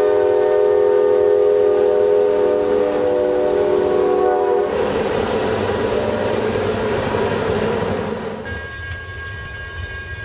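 A diesel locomotive's multi-chime air horn sounding for the grade crossing, then cutting off about four and a half seconds in. The EMD GP38 locomotives' engines then pass close by, working hard under load as the train climbs the grade. After about eight seconds this gives way to the quieter rumble of the passing freight cars, with a steady ringing tone from the crossing signal's bell.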